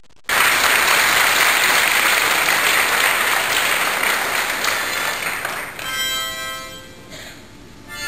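Audience applauding, starting suddenly and fading away over about five seconds; about six seconds in, the show's orchestra begins playing held notes.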